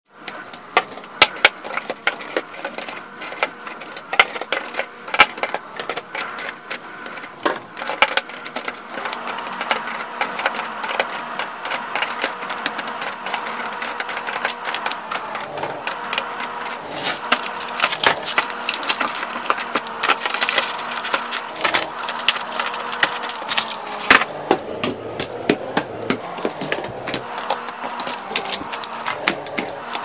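Eggs and plastic items clicking and tapping as they are set by hand into clear plastic bins, in a quick irregular patter, with a steady hum underneath.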